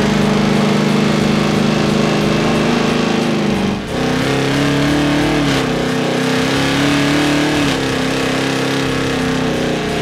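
Supercharged V8 engines held at high, steady revs through burnouts, including the Hellcat-swapped 1968 Dodge Charger's supercharged 6.2-litre Hemi. The pitch holds steady, then breaks about four seconds in and settles at a new, slightly wavering note.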